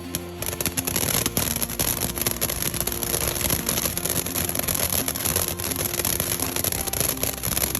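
Ground fountain firework spraying sparks: a steady hiss with dense, rapid crackling.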